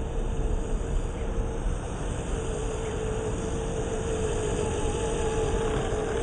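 RC crawler's 27T electric motor and gear drivetrain whining at a nearly steady pitch under a constant rushing noise as the 1/10-scale truck drives off-road.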